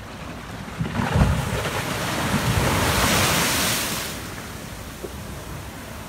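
A large sea wave crashing against a concrete seawall: a heavy thud about a second in, then a loud rush of surf and spray that swells and dies away about four seconds in.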